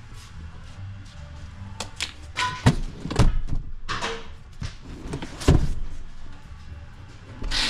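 Several dull thumps and knocks from the rear door and interior of a 2016 GMC Yukon XL being handled, loudest about three and five and a half seconds in.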